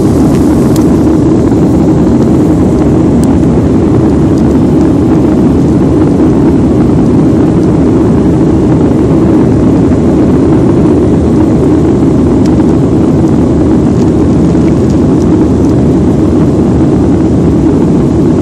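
Jet airliner's engines running at takeoff or climb power, a loud steady noise with no change in pitch or level.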